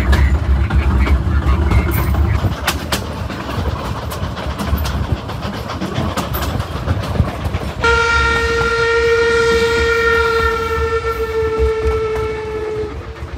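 Narrow-gauge train rumbling and clacking over the rails. About eight seconds in, the steam locomotive's whistle sounds one long blast of about five seconds, dropping slightly in pitch as it ends.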